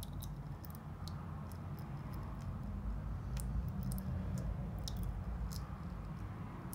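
Used engine oil draining in a thin stream from a 125cc dirt bike's sump drain hole, heard as light irregular ticks over a low steady rumble.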